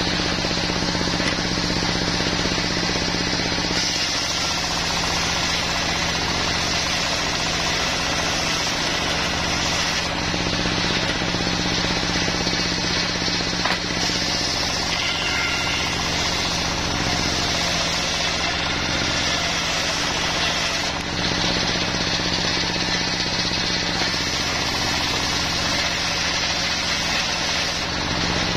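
Portable circular-saw sawmill running, its stationary engine turning steadily as the blade rips lengthwise through a log. The high-pitched cutting noise swells and eases several times as the log is pushed through and boards come off.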